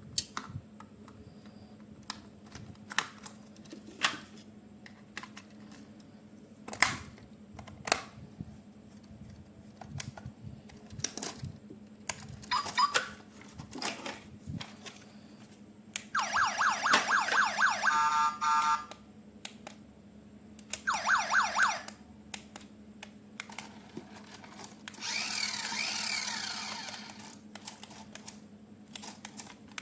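Clicks and knocks of plastic toy handling, broken twice by a toy police truck's electronic siren, a loud pulsing warble lasting about three seconds and then about one second. Near the end comes a noisier sound of about two seconds with gliding tones.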